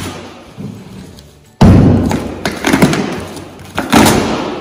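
Cardboard shipping box being cut open and its taped flaps pulled apart on a wooden workbench. A heavy thump comes about a third of the way in, followed by uneven scraping and tearing of cardboard and tape.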